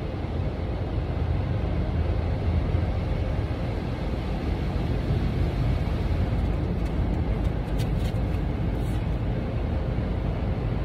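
Automatic car wash running, heard from inside the car's cabin: a steady rushing, rumbling noise of water spray and machinery on the car.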